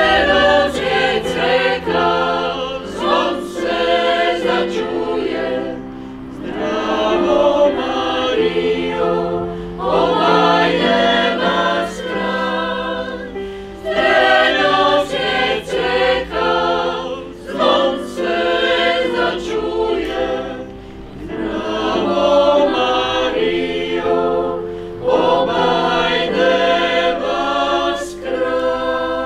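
Choir of mostly women's voices singing a song in several parts, in phrases a few seconds long with short breaths between, accompanied by piano.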